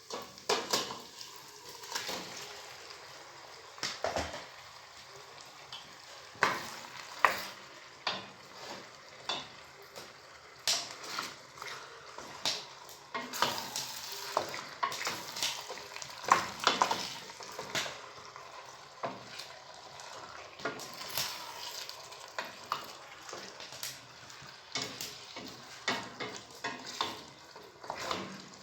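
Food sizzling as it fries in a pan, stirred with a utensil that scrapes and knocks against the pan in frequent irregular clicks.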